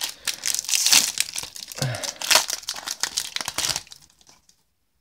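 Foil Yu-Gi-Oh booster-pack wrapper being torn open and crinkled by hand, a rapid run of crackling that stops about four seconds in.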